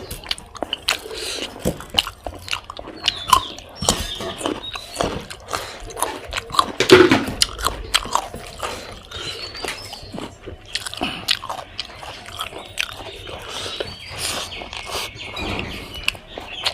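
A person chewing and biting spicy pork: irregular mouth clicks and smacks, with one louder one about seven seconds in.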